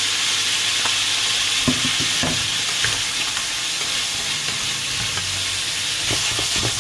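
Chicken feet and giblets sizzling steadily in a hot nonstick frying pan while a wooden spatula stirs and scrapes them. A few short knocks of the spatula against the pan come about two seconds in and again near the end.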